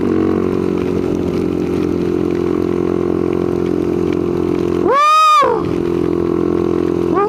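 Honda 400EX ATV's single-cylinder four-stroke engine running steadily at cruising speed, with wind and rain noise on top. About five seconds in, a brief loud tone rises and falls over half a second.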